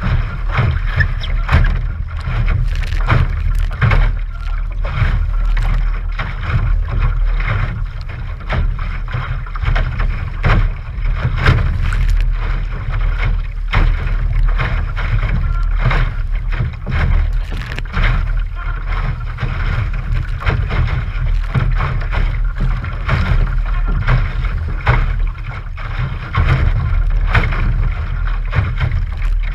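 Wind rumbling heavily on the microphone while lake water splashes and slaps irregularly against the hull of a 1971 AMF Sunfish sailboat under sail in choppy water.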